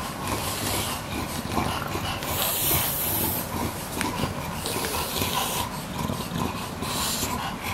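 English bulldog breathing noisily while nosing and mouthing a plush toy, with four loud, hissing breaths of about a second each.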